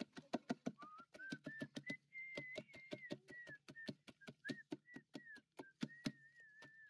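Hand-held masher pounding mashed fruit in a large aluminium pot: quick, repeated wet knocks, several a second. A high, wavering whistle comes in about a second in and goes on over the mashing.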